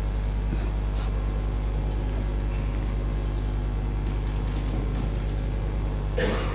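Steady low hum of the chamber's microphone feed and room, with a few faint knocks and murmurs, and a brief louder sound near the end.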